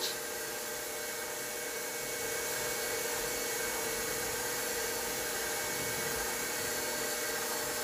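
Electric stand mixer motor running steadily at speed, its beater spinning through cake batter in a stainless steel bowl, giving a constant hum.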